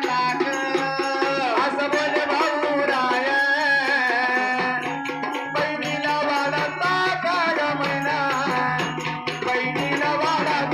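Live Marathi jagran folk-song music: a keyboard melody with gliding notes over a steady hand-drum rhythm and a shaken rattle.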